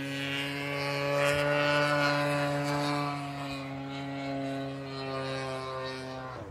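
33cc gas engine of an Ultra Stik RC model airplane droning in flight. It swells and then fades as the plane passes, its pitch rising slightly and then falling, and it cuts off abruptly at the very end.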